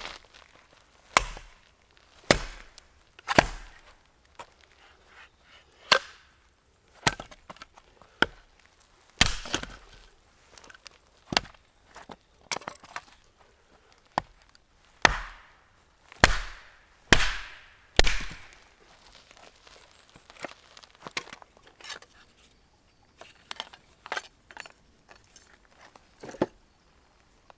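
Firewood being split by hand: a dozen or so sharp chopping strikes of a blade into wood at irregular intervals of about a second, some trailing off in a brief splintering crackle, with lighter, quicker taps near the end.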